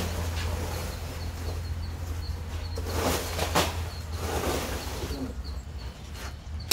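Plastic sacks rustling as they are shifted with a stick, loudest about three seconds in, over a steady low hum. A small bird chirps faintly and repeatedly throughout.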